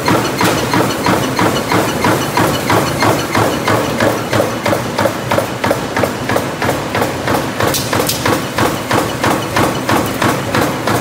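Rhythmic mechanical clattering from metalworking machinery, an even run of sharp knocks at about three a second.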